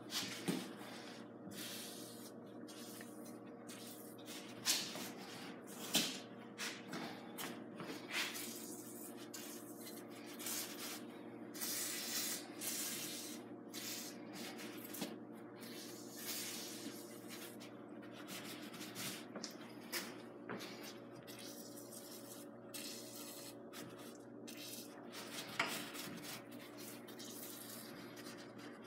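Repeated short hissing bursts of aerosol lubricant being sprayed onto garage door hinges and rollers, with a few sharp clicks in between.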